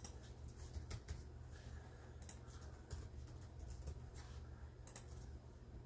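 Faint, scattered clicks of typing on a computer keyboard, a few sharp taps spread over several seconds, over a steady low room hum.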